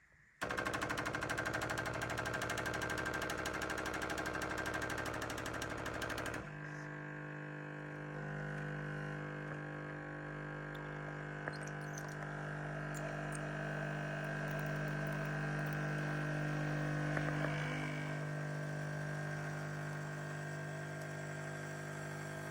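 Tassimo Suny coffee machine brewing, its pump running: a rattling buzz for about six seconds, then a steadier, lower hum that carries on until it cuts off near the end.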